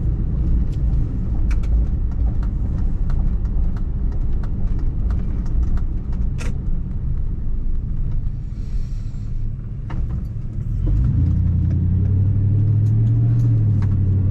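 Car running, heard from inside the cabin: a constant low rumble with scattered light clicks and ticks, and a steadier low engine hum that comes back about eleven seconds in.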